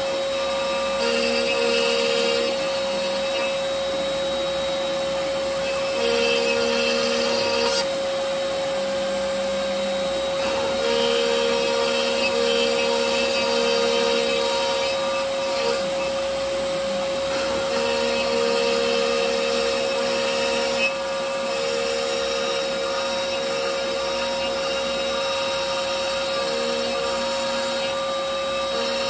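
CNC router spindle running with a steady high whine while its bit cuts maze grooves into MDF. The cutting noise swells and drops every second or two as the bit moves along the passes, and a dust-extraction vacuum runs underneath.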